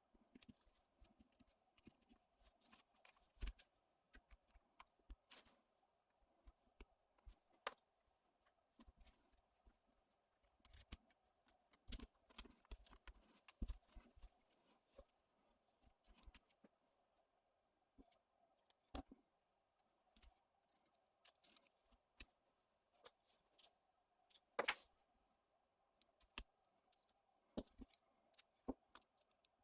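Faint, sparse clicks and taps of small parts and tools being handled during a rebuild, with the loudest knock about three-quarters of the way through, over a faint steady hum.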